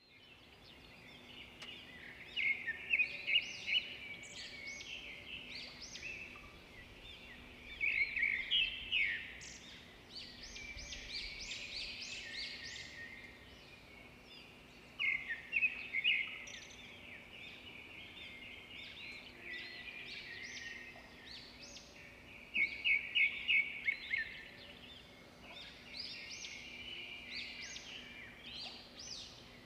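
Birds chirping and trilling in bursts every few seconds, over a faint steady hum.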